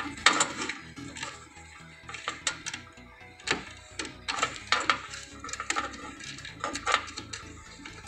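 Hands handling front-panel connector wires inside a desktop PC case, making irregular clicks, taps and light clattering close to the microphone.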